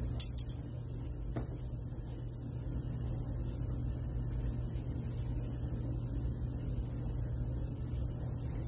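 A steady low hum, with a sharp click about a quarter second in and a softer one just over a second later as a strap and its buckle are handled.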